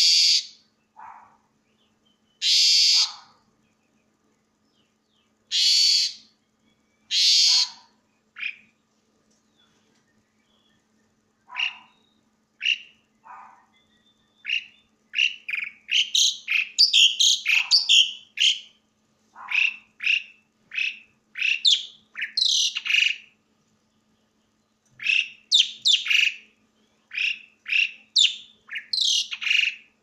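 Asian pied starling (jalak suren) singing loudly: a few long, harsh, noisy calls at first, then a fast, varied run of short whistles and chattering notes that grows denser about halfway through.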